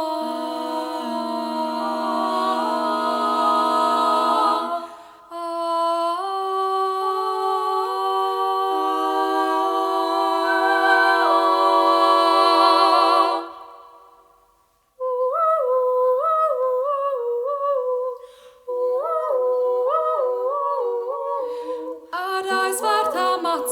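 Female a cappella vocal group humming wordless close harmony in long held chords. The chords fade out about two-thirds of the way through. Short, bouncing vocal figures then repeat, and fuller singing comes in near the end.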